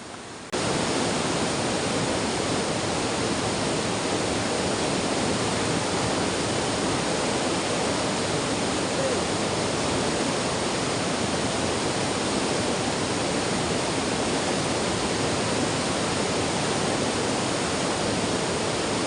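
River water rushing, a loud steady hiss that starts abruptly about half a second in.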